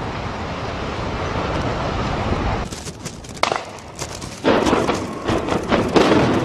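Explosive demolition of high-rise tower blocks: a collapsing block's rumble dies away after about two and a half seconds. A few sharp cracks follow, then from about four and a half seconds a rapid string of bangs from the demolition charges as the next block begins to fall.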